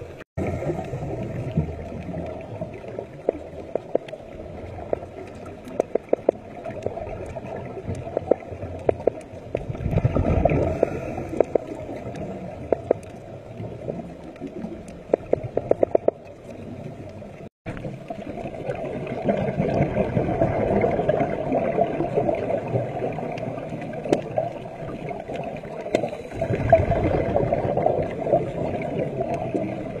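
Underwater sound picked up by a diving camera: a muffled, continuous wash and gurgle of water, with scattered sharp clicks throughout. It swells louder in bursts about a third of the way in, around two thirds, and near the end, and cuts out completely for an instant twice.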